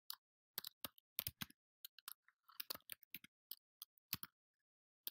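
Faint, irregular keystrokes on a computer keyboard as a line of text is typed, pausing briefly near the end.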